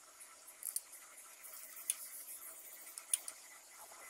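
A steel spoon clicking faintly against a plate a few times as thick rabri is spooned over fried bread slices, over a low steady hiss.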